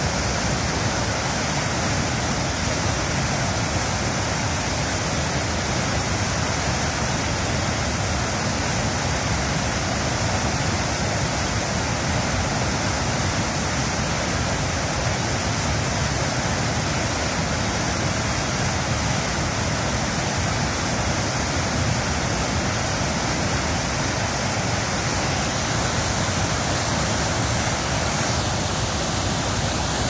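River water pouring over a low weir and churning into whitewater below: a steady, even rush.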